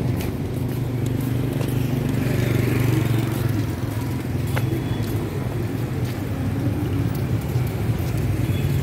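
Street traffic with motorbike engines running, a steady low hum.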